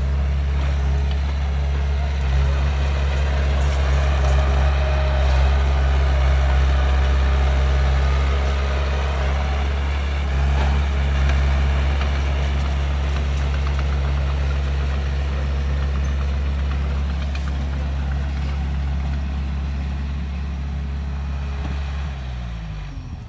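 Heavy diesel engine of a dump truck or excavator idling steadily. It falls in pitch and fades near the end.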